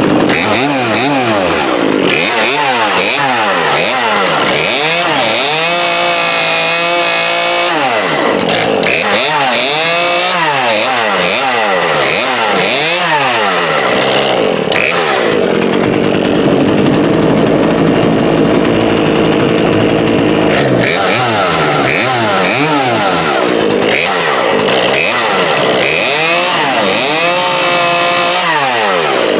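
Poulan Pro 42cc two-stroke chainsaw running, revved up and down again and again, with a stretch of several seconds around the middle held at a steadier speed. It runs well after a carburettor adjustment.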